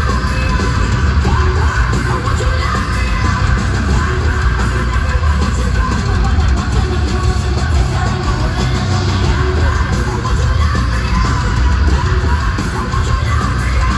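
Loud live heavy metal band playing in a large arena, with yelled and sung vocals over the band, heard through the arena's PA from the crowd.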